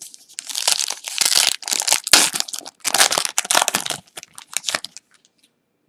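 Plastic trading-card pack wrapper crinkling and crumpling in a run of loud, crackly handling bursts that fades out with a few small ticks near the end.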